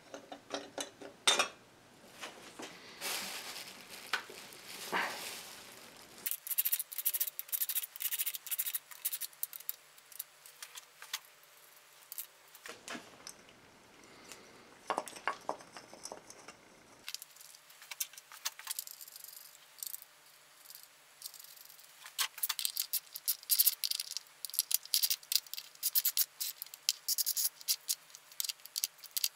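Metal clinks and taps as a water pump and its pulley are fitted by hand to an engine, then quick runs of ratchet-wrench clicks over the last several seconds as the pulley bolts are run in.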